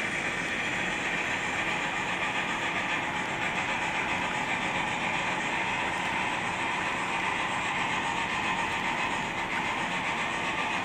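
HO scale model passenger coaches rolling past on the track, a steady rattle of small metal wheels on rail.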